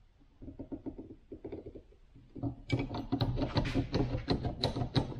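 Hand-tool work on metal tractor brake parts: scattered light clicks and taps, then from about halfway a fast run of sharp clicking and scraping as the new brake pad is fitted and worked into place.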